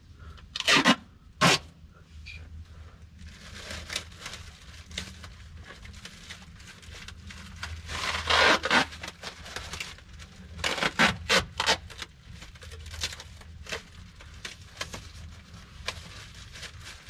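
Duct tape pulled off the roll in short rasping rips, with a plastic bag crinkling as it is taped down over a pipe. The rips come in a couple of quick pulls about a second in and a busier run of them in the middle of the stretch.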